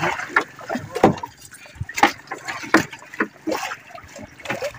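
Water splashing against the hull of a wooden outrigger fishing boat, with irregular knocks and rustling as a fishing net is paid out over the side.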